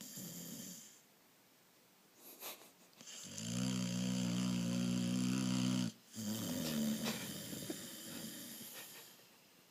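Heavy snoring from a sleeper. A short snort comes at the start, then a long, loud buzzing snore of about two and a half seconds that breaks off suddenly. It is followed by a softer breathy snore that fades away over about three seconds.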